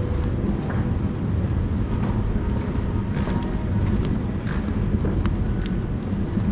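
Firewood burning in a wood stove: a steady low roar from the fire, with scattered crackles and pops from the burning wood.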